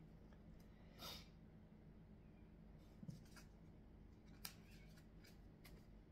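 Near silence: faint room hum, with a short soft rustle about a second in and several faint light clicks later, from tarot cards being handled on a table.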